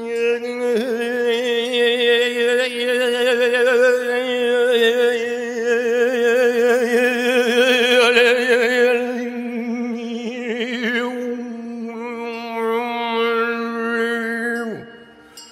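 A voice holding one long sung note with a wavering vibrato, rich in overtones; the note slides down and breaks off near the end.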